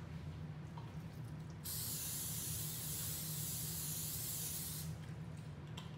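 Aerosol cooking-oil spray can spraying: one steady hiss of about three seconds, starting a little under two seconds in.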